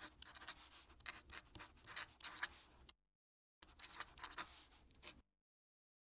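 A fountain pen nib scratching across paper in quick writing strokes. It stops briefly about three seconds in, resumes, and stops again about a second before the end.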